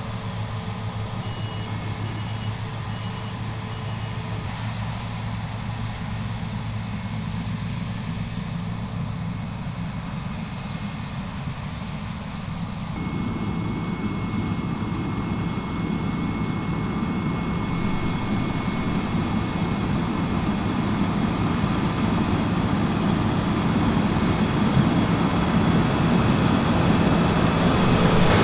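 Claas Lexion 6800 Terra Trac combine harvester at work in wheat: a steady hum of its Mercedes six-cylinder engine and threshing machinery. The sound grows gradually louder over the second half.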